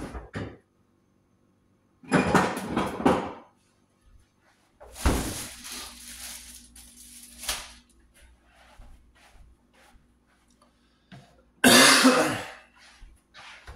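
A man coughing in a few loud fits, with light knocks and clicks between them.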